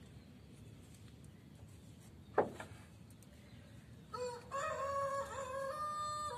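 A rooster crowing from about four seconds in: a few short notes, then one long held note that falls away at the end. A single sharp click comes about two and a half seconds in.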